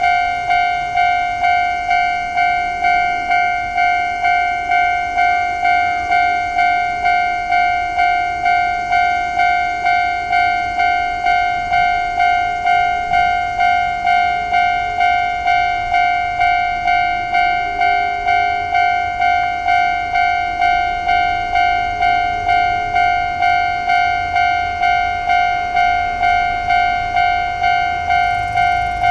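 Railway level-crossing warning alarm ringing steadily, an even run of bell-like dings a little under two a second: the signal that a train is approaching the crossing.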